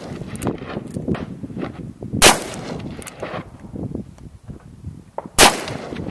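Two single gunshots from a .44 Magnum handgun, about three seconds apart, each a sharp loud crack, with fainter knocks between them.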